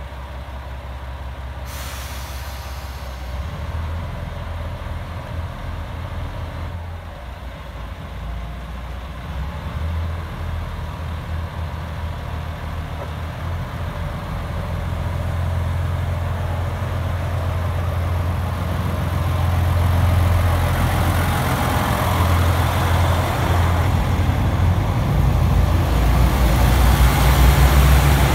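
JR Shikoku 2000 series diesel railcar train approaching along the platform and running close past: a low diesel engine rumble growing steadily louder, with wheel and rail noise building over the last several seconds as the cars pass.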